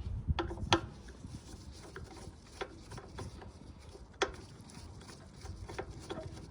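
Scattered clicks and knocks of a flathead screwdriver working the plastic air filter cover loose on a Briggs & Stratton mower engine, the sharpest click about four seconds in.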